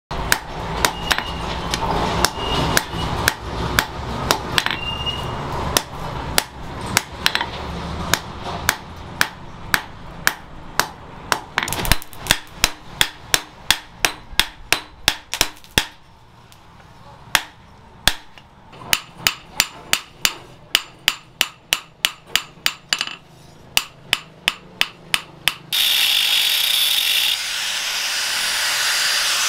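Hand hammer striking a red-hot steel Bowie knife blade on a steel post anvil: a long run of sharp, ringing blows at about two to three a second, with a short pause past the halfway mark. Near the end the blows give way abruptly to the steady whine of an angle grinder working the blade.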